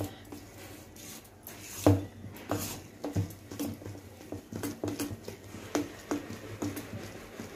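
Spoon beating thick rice and urad dal batter in a stainless steel bowl: a run of wet slapping strokes and light knocks against the bowl, about two to three a second, the loudest about two seconds in.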